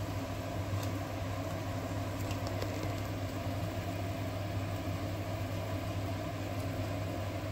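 Fish curry boiling in a pot on a gas hob, under a steady low hum that runs on evenly.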